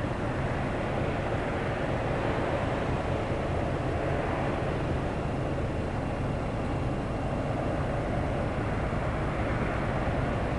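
BNSF freight train rumbling steadily, a low, even diesel-and-rail drone that holds at the same level throughout.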